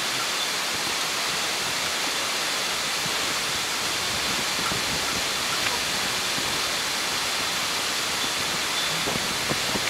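Steady rushing noise of running water, even and unbroken, with a couple of faint clicks near the end.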